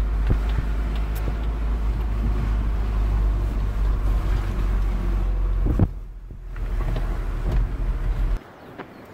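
Low, steady rumble of a car's engine and road noise heard from inside the cabin. There is a single sharp knock about six seconds in, followed by a brief dip, and the rumble cuts off suddenly near the end.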